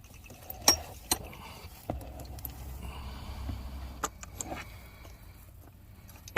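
Metal hand tools clinking and clicking, with a few sharp knocks as sockets and a ratchet are handled, over a low steady hum.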